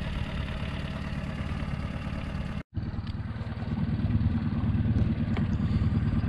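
Storm F18 four-stroke outboard motor, new and being run in, running steadily and quietly at low throttle. After a sudden short break a little before halfway it runs louder, pushing the inflatable boat along.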